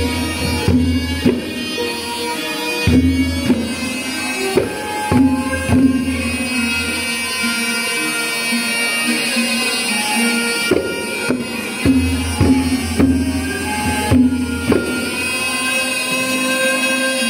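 Traditional Khmer instrumental music: a reedy wind instrument holds a sustained melody over regular hand-drum strokes, with a deep low layer that drops in and out.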